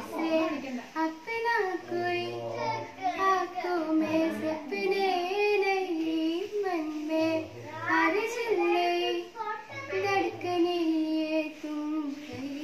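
A single high-pitched voice singing a song, holding long, wavering notes.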